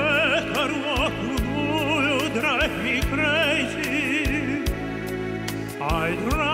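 Male operatic tenor singing with a wide vibrato over recorded accompaniment with drum hits.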